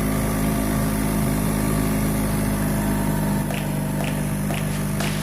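Small boat engine running steadily at a constant pitch, easing slightly in level about three and a half seconds in, with a few light clicks near the end.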